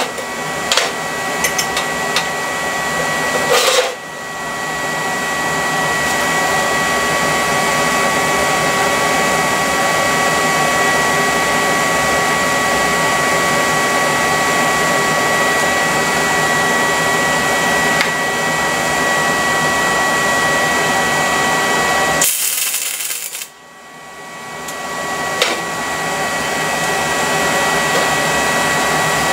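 A steady machine whir with a constant high whine running through it, breaking off suddenly twice, about four seconds in and again near the end, and each time building back up over a second or two.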